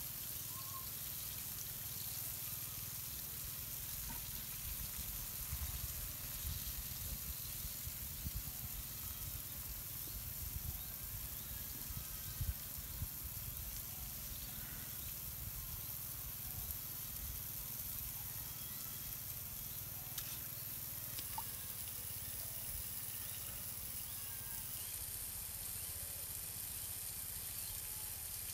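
Steady outdoor background hiss with a low rumble, and a few soft low knocks in the middle.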